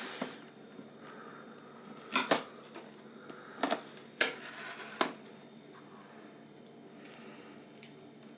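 Scattered sharp clicks and light knocks from hands handling a stainless steel filter coffee machine, with two quick knocks about two seconds in and single clicks every second or so after.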